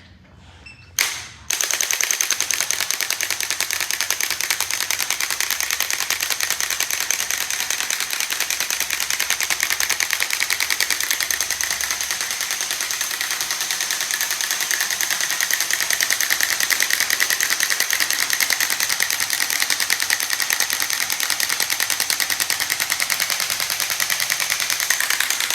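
Handheld electric percussion device, a massage gun or adjusting instrument, running continuously with a rapid, even machine-gun-like pulse. It starts sharply about a second and a half in, just after a short click, and cuts off suddenly at the end.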